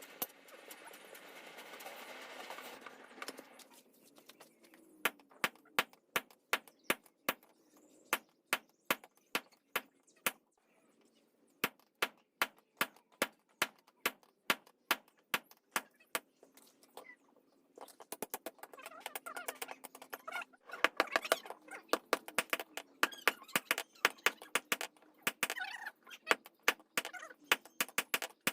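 Hand hammer striking metal on an anvil in steady repeated blows, about two to three a second, coming faster and closer together from about two-thirds of the way in, as a piece of car gear steel is forged toward a knife.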